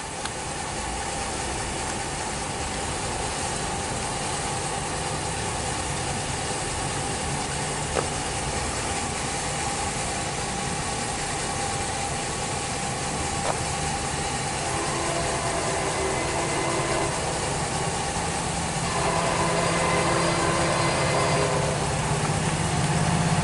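Steady outdoor noise with a MARC commuter train approaching, getting gradually louder. In the second half the train sounds two long held tones, each about two seconds.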